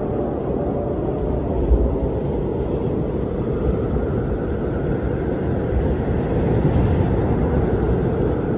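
Howling wind: a steady, deep rushing noise that swells a little about three-quarters of the way through.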